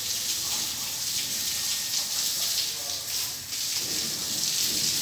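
A steady high-pitched hiss that swells and fades a little, with faint voices underneath.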